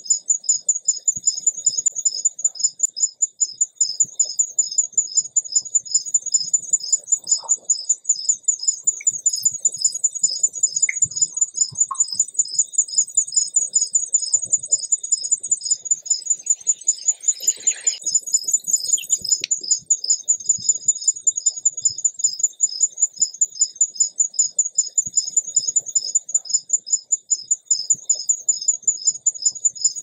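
An insect calling nonstop with an even, rapid train of high-pitched chirps, several a second. A short, falling bird call cuts in a little past the middle.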